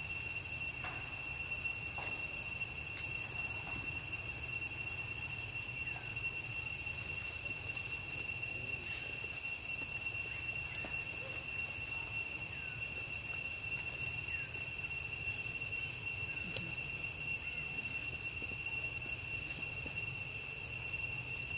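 Steady, high-pitched insect drone holding one unbroken tone, with a few faint short chirps scattered over it.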